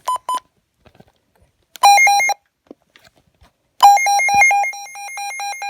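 Midland WR120 NOAA weather radio sounding its alert siren on test: a couple of short beeps, a brief burst of alarm, then from about four seconds in a loud pulsing electronic alarm, about five beeps a second, alternating between two pitches.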